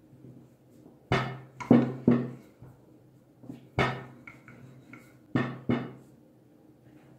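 Dough being rolled out with a wooden rolling pin on a silicone pastry mat over a wooden table: six sharp wooden knocks in three clusters, with quiet handling and rolling between them.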